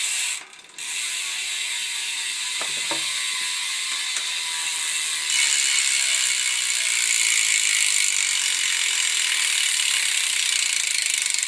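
Ungreased BMX rear hub with tensioned pawl springs freewheeling, its pawls clicking so fast they blend into a loud ratcheting buzz. The buzz cuts out briefly about half a second in, then comes back and grows louder about five seconds in as the wheel is spun again.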